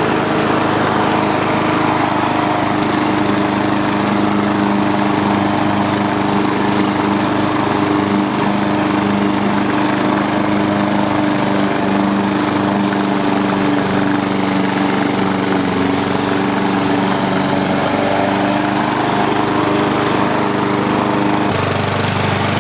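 Walk-behind lawn mower with a 5 horsepower Briggs & Stratton engine running steadily; its note changes near the end.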